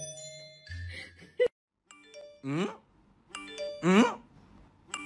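Music that cuts off abruptly, then a looped soundtrack of chime-like tones, each followed by a short voice-like sound rising in pitch, repeating about every second and a half.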